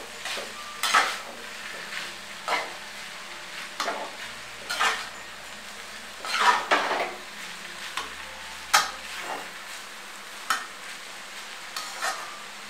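Perforated metal skimmer spoon scraping and knocking against a metal wok as noodles are tossed, irregularly, about once a second. A faint sizzle of stir-frying on high flame runs under it.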